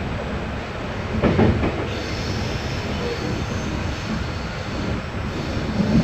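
Passenger train running along the track, heard from inside the carriage: a steady rumble of wheels on rail, a louder clatter about a second and a half in, and a faint high wheel squeal from about two seconds in.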